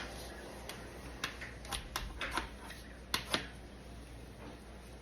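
Kitchen shears snipping through raw steak: a series of short sharp snips and clicks, the loudest a quick pair just after three seconds in.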